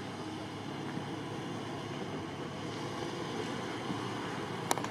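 Jeep Cherokee's engine running steadily as it drives through a sandy off-road course, heard from a distance. A sharp click sounds near the end.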